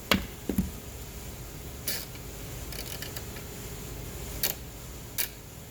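A few scattered metallic clicks and knocks of hand tools being handled, the loudest about half a second in, over a steady low hum.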